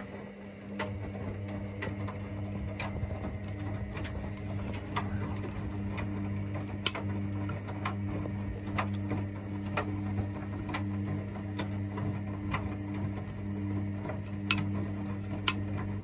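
Hoover DynamicNext washing machine in the main wash of a cotton 40° cycle, its drum motor turning with a steady hum. Irregular clicks and knocks come from the wet laundry tumbling in the drum.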